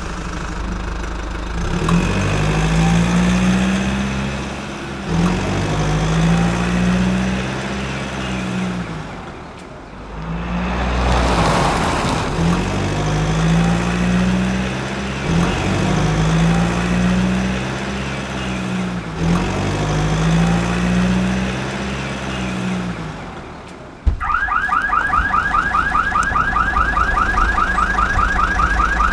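Dubbed-in vehicle engine sound effect, a low note that swells and falls in a loop every three to four seconds. About 24 seconds in it changes to a fast, even mechanical rattle as the toy dumper tips its gravel.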